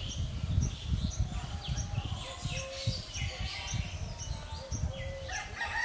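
Small birds chirping and calling: a short high chirp repeated about twice a second, mixed with quick falling whistled notes, over a low rumbling background noise.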